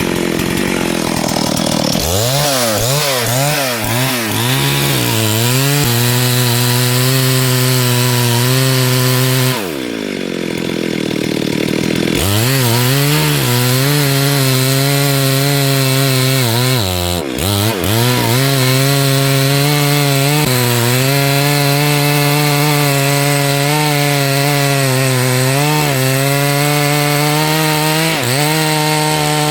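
Two-stroke chainsaw running at high revs through wood. Its pitch swings up and down over the first few seconds, drops off about ten seconds in and climbs back two seconds later, and dips briefly once more near the middle.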